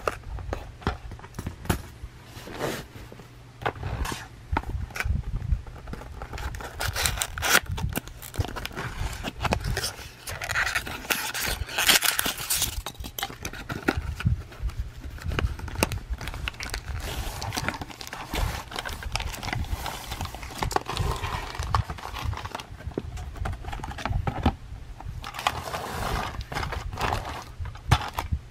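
A cardboard toy box being handled and opened by hand: irregular scraping, tapping and rustling of cardboard and paper, with a longer stretch of rustling about two fifths of the way in, and plastic wrapping crinkling as the packed train is slid out near the end.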